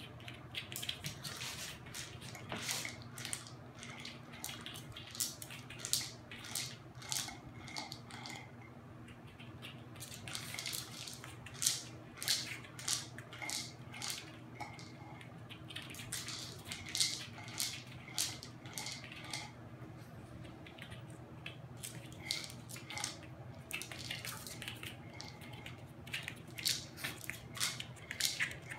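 Kibble rattling and clicking inside a plastic wobbler treat-dispensing toy as a small dog knocks it back and forth, with pieces dropping out and being crunched. The clicks come in irregular clusters with short pauses.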